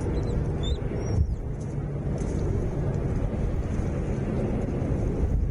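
A steady low rumble, with a few short, high chirps from small birds in the first second or so.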